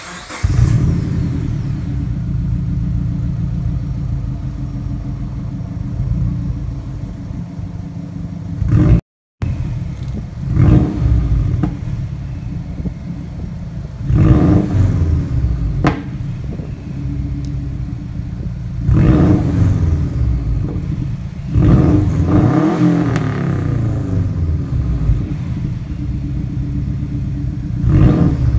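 Subaru Forester XT's turbocharged 2.5-litre flat-four, heard through a muffler-deleted exhaust with an STI midpipe. It runs at a deep idle and is revved in about seven short blips, with one longer rev and fall about two-thirds of the way through.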